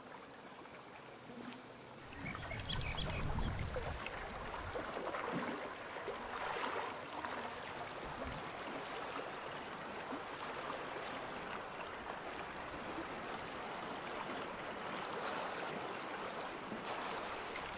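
Lake water lapping and splashing, starting about two seconds in and carrying on steadily.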